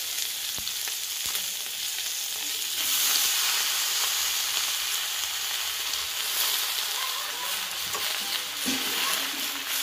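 Prawns sizzling in hot oil in a steel kadai. About three seconds in, the sizzle grows louder as a heap of fresh leafy greens goes into the pan. A few light clicks are heard before that.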